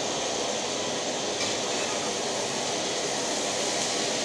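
Sliced onions and bitter gourd frying in hot ghee with a steady sizzle, the onions starting to brown.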